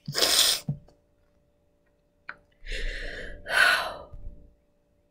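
A young woman crying: a sharp gasping breath right at the start, then two long sighing breaths about three seconds in.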